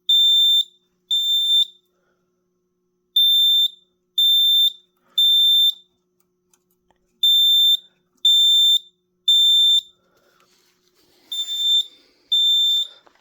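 Fire alarm sounder on an FX-10/Firesheild panel system sounding a loud high-pitched beep in the temporal-3 evacuation pattern: three half-second beeps, then a pause of about a second and a half, repeating. The panel is in alarm because a zone has been shorted with a plain wire across its terminals as a test.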